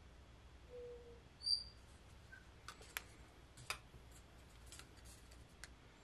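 Soft clicks and taps of a wooden craft stick against small plastic paint cups, and of cups being picked up and set down, while acrylic paint is dribbled onto a canvas. A short high squeak about a second and a half in is the loudest sound.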